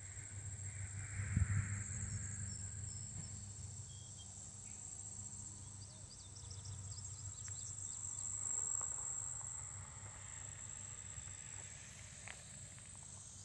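Steady high-pitched chorus of insects, with a low rumble underneath that swells briefly a couple of times. A few faint short chirps come in about halfway through.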